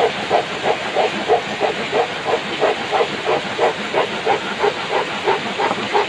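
Handsaw cutting through a painted wooden board, rasping back-and-forth strokes at about three a second.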